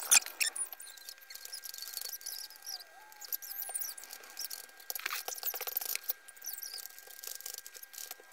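Soldering iron working flux-coated header pins on a circuit board: the flux sizzles and crackles in quick high ticks, with a few small squeaks. There is a sharp click just after the start.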